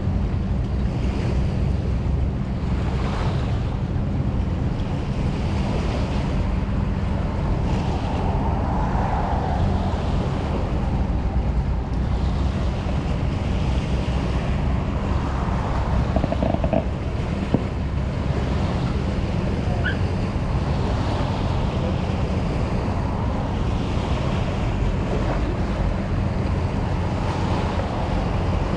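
Steady wind rumbling on the microphone over a constant rushing wash like sea surf, with no distinct events.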